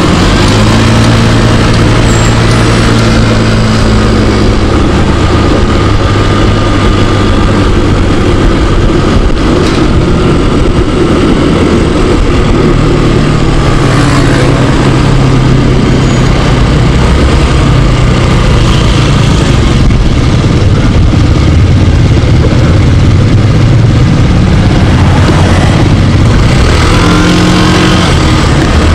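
Scooter engine running under way, its pitch rising and falling with the throttle and rising near the end, over a steady rush of wind and road noise. The scooter runs again after a clogged air cleaner was replaced.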